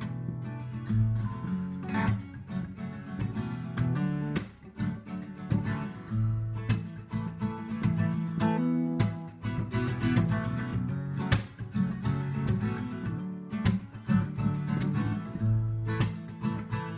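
Music: acoustic guitar strumming chords, with no singing.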